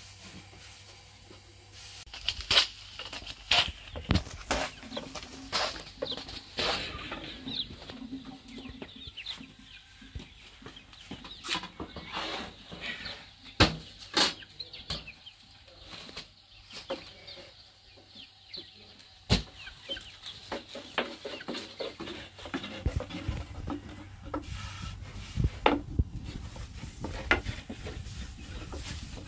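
Chickens clucking, mixed with irregular sharp knocks and clatter.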